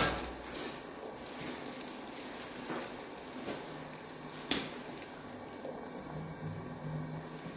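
Quiet room tone with a single soft click about four and a half seconds in.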